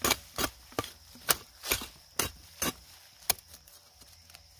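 Hand hoe chopping into the soil between peanut plants to cut out weeds: about eight sharp strikes, roughly two a second, that then stop.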